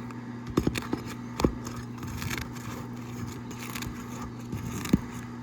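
Asphalt roof shingles having their sealant strips broken loose with a pry tool: scraping with a few sharp cracks and clicks. A steady low hum runs underneath.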